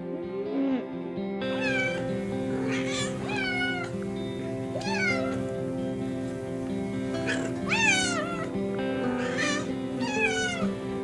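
A cat meowing over and over, a string of short calls that bend in pitch, beginning about a second and a half in, over steady background music.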